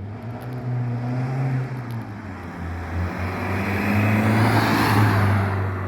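Car engine running and accelerating as it passes, its pitch shifting and growing loudest about five seconds in.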